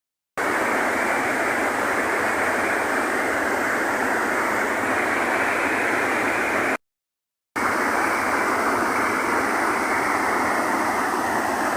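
Steady rushing noise, broken by two short cuts to total silence: one at the very start and one about seven seconds in.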